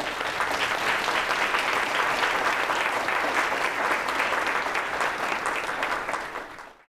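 Audience applauding, a steady patter of many hands clapping that tapers off and cuts off suddenly near the end.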